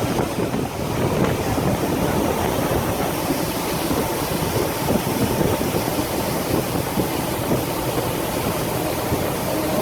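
A vehicle's engine running under steady rushing, churning water noise as it drives through deep floodwater.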